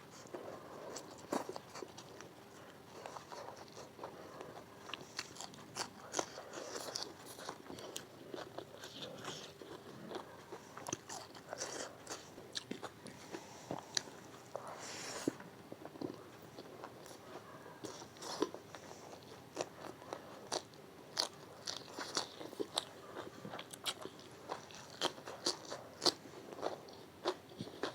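Close-miked eating: a person biting and chewing with crisp, crackly crunches and wet mouth clicks, many short sounds in an irregular run.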